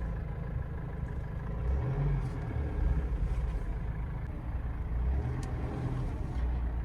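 GAZelle Next van running at low speed, a steady low engine and road rumble that swells a little a couple of times as it creeps along and manoeuvres.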